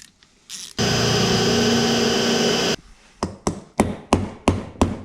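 A power drill runs steadily for about two seconds and cuts off, then sharp metal clicks follow at about three a second, from work on the seized crankcase screws of a small two-stroke engine.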